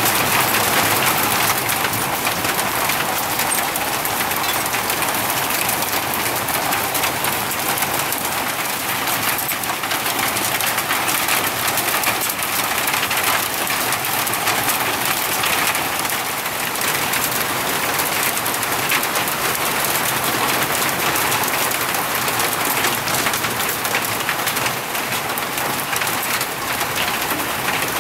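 Heavy thunderstorm rain falling steadily, an even hiss of drops pelting foliage and ground.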